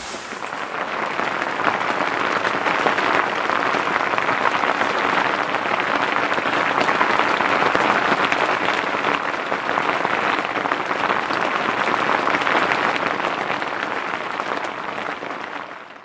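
Steady rain falling on a tent, a dense even hiss of countless drops that swells in over the first couple of seconds and fades away near the end.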